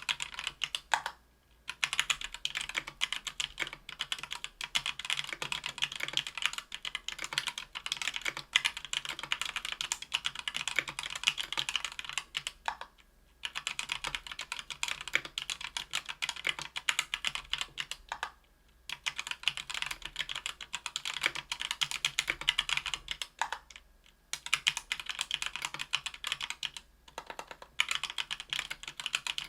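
Continuous typing on a Tofu 60% aluminium keyboard with stock, unlubed Thic Thock Marshmallow 68 g linear switches under GMK keycaps on an aluminium plate. Rapid runs of key clacks are broken by brief pauses every few seconds.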